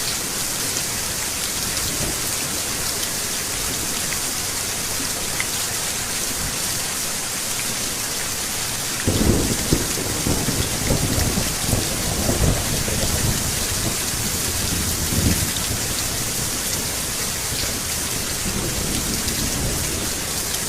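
Steady rain pouring, with thunder breaking in suddenly about halfway and rumbling in rolling waves for several seconds.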